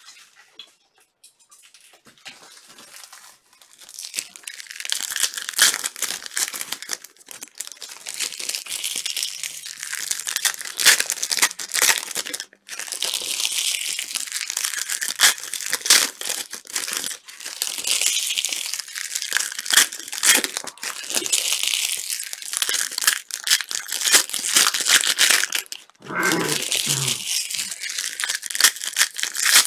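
Plastic wrappers on trading-card boxes and packs being torn open and crinkled, a dense crackling that starts about four seconds in and goes on with only brief breaks.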